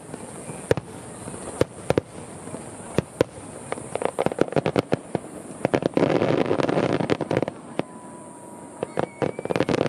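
Aerial fireworks shells bursting with sharp, separate bangs, joined from about four seconds in by a dense crackling of sparkling stars that is loudest a little past the middle and again at the end.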